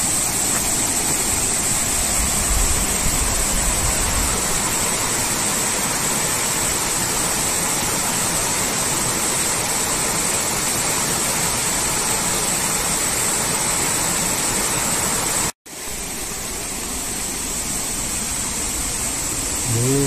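Clear mountain stream rushing and cascading over boulders in small falls, a steady even rush of water. It cuts out for an instant about three-quarters through and comes back a little quieter.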